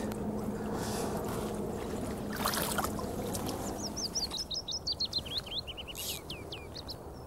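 A small songbird singing a quick run of sharp notes that fall in pitch and end in a few downward sweeps, over the steady rush of a flowing river. A brief noise comes about two and a half seconds in.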